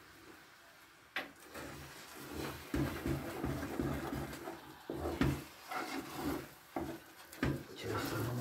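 A wooden stick stirs thick mămăligă (cornmeal porridge) in a metal pot, in repeated irregular scraping and rubbing strokes with sharp knocks of the stick against the pot. A single knock comes about a second in, and the steady stirring starts a second or so later.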